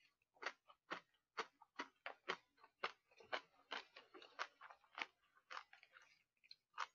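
Close-miked chewing: a string of faint, short wet clicks from a man's mouth as he eats, about two or three a second and irregular.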